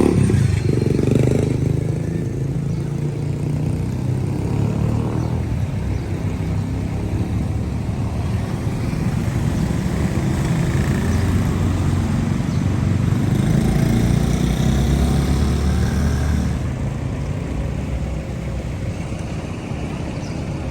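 Motor vehicle engine noise in street traffic: a continuous low rumble that swells and eases, growing a little quieter near the end.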